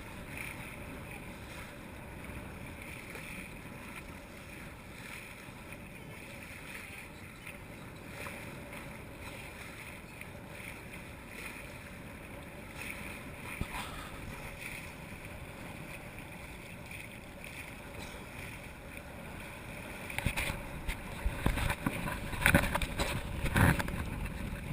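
Steady wind and water noise aboard a sailboat under way, with louder irregular bumps and buffeting near the end.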